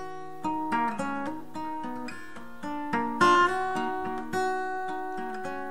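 Background music: an acoustic guitar picking a melodic phrase, single notes plucked in quick succession, with no singing.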